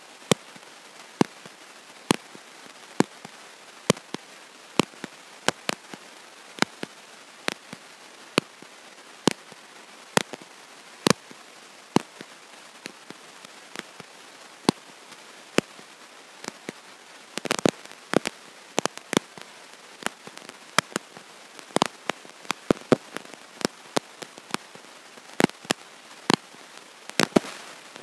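Electrical crackle on the recording: sharp, irregular pops, about one a second at first and then two or three a second, with a quick cluster a little past halfway, over a faint steady hiss. No voice comes through, the sign of a faulty microphone or audio connection.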